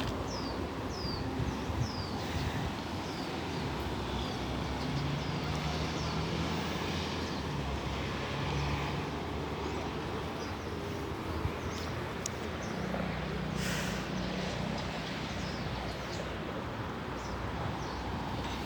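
Outdoor ambience: a steady low hum of distant traffic, with a bird giving a run of short falling chirps in the first couple of seconds and a brief hiss about fourteen seconds in.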